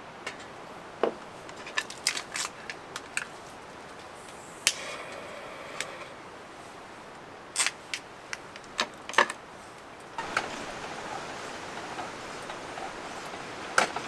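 Irregular clicks, clinks and light knocks of small objects being handled, a dozen or so scattered through, one near the middle ringing briefly. A steady hiss lies underneath and grows a little louder in the last few seconds.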